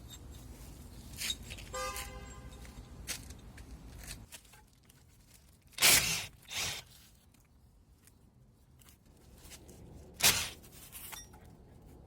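Tools and parts being handled during repair work: a short squeak about two seconds in, then sharp knocks, two close together about six seconds in and one more about ten seconds in.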